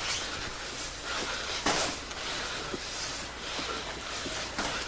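Boxing sparring in a ring: a few soft thuds from the gloves and feet, about two seconds in and again near the end, over a steady hiss.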